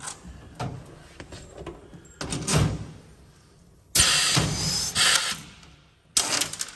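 A pneumatic Huck fastener tool sets a Huck bolt: a sudden loud burst of air noise about four seconds in that lasts about a second and tails off, then a second short burst near the end. Lighter knocks and handling noises come before.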